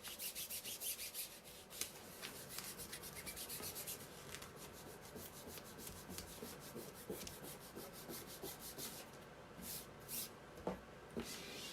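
Hands rubbing an adhesive craft transfer down onto a chalk-art surface: quick scratchy rubbing strokes, several a second for the first few seconds, then slower and more scattered.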